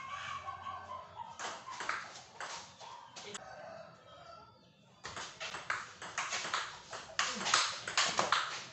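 Table tennis ball clicking off the paddles and the table in a rally. A short pause comes about three and a half seconds in, then a new rally of quick, rapid hits.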